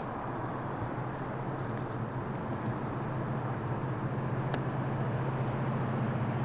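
Class 66 diesel locomotive's two-stroke V12 engine running under load in a steady low hum as it approaches with a freight train, slowly growing louder.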